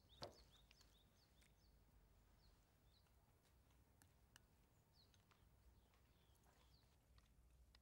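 Near silence: quiet room tone with faint, scattered bird chirps and a few soft clicks, and one soft knock just after the start.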